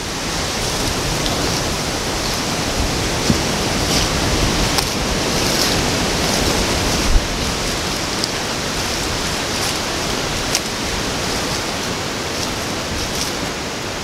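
Steady rushing noise of strong wind through trees and leaves, with a few faint ticks and crackles.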